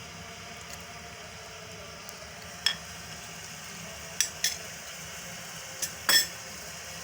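Water boiling in a pan on the stove, a steady hiss, with five sharp clinks against the pan in the second half, the last one the loudest.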